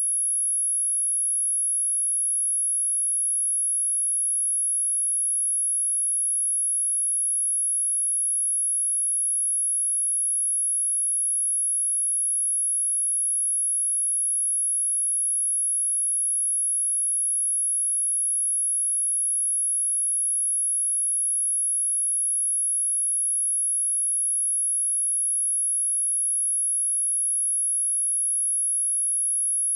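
A pure sine-wave test tone at 10741 Hz, one steady high-pitched whistle that holds unchanged in pitch and loudness.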